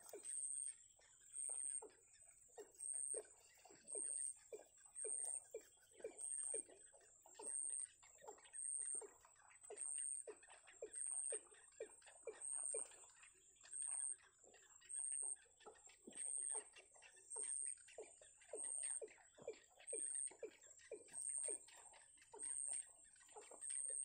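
A thin, high-pitched chirp repeating at a very even pace, about once every three-quarters of a second, over softer, irregular low peeps and clicks.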